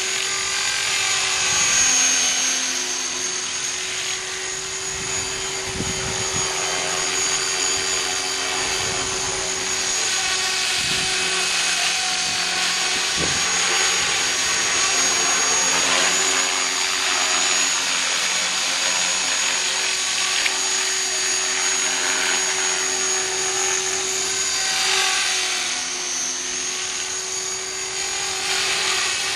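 Align T-REX 450SE v2 electric RC helicopter in flight: the high whine of its motor and gears over the buzz of the spinning rotor blades, running continuously with small rises and falls in level and pitch as it is flown.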